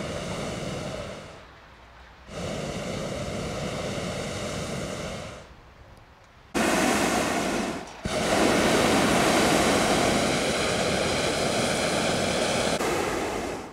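Hot-air balloon propane burner firing in four blasts separated by short pauses, the last one the longest at about five seconds.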